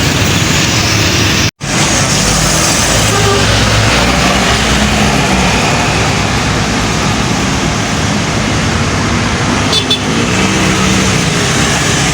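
Busy road traffic with buses passing close: steady engine and tyre noise. The sound cuts out completely for a moment about one and a half seconds in.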